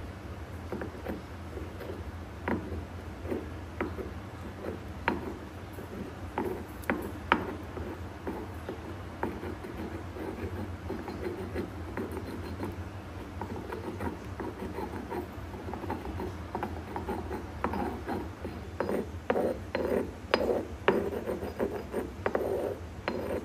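Stone pestle mashing and grinding cooked mango pulp in a stone mortar: a wet rubbing and grinding with scattered sharp knocks of stone on stone, busier and louder in the last few seconds.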